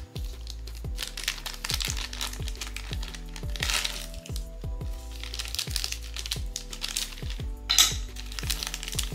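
Background music with a beat and repeated falling bass notes, over the crinkling of plastic or foil blind-box wrappers being handled. There is a sharper crackle a little before the end.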